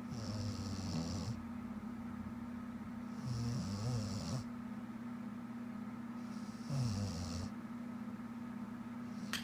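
A woman snoring in her sleep: three snores about three seconds apart, each around a second long, each a low buzz with a breathy hiss.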